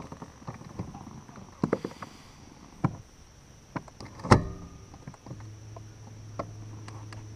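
Scattered light knocks and clicks aboard a fishing boat, with one sharp knock about four seconds in. About a second later a steady low motor hum starts and keeps running. A steady high insect drone sounds throughout.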